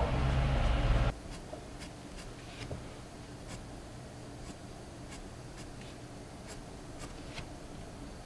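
Graphite pencil scratching on drawing paper in short, separate strokes, roughly one or two a second. For about the first second a loud low rumble covers the strokes, then cuts off suddenly.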